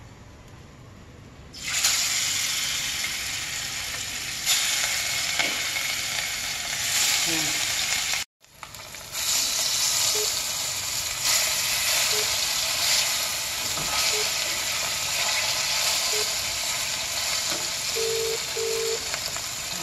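Fish pieces sizzling as they shallow-fry in hot oil in a pan. The sizzle starts about two seconds in and cuts out briefly near the middle before resuming.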